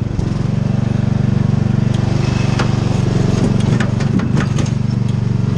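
A riding lawn mower's engine runs steadily as it tows a wagon over rough woodland ground, with scattered knocks and clatters from the bouncing wagon.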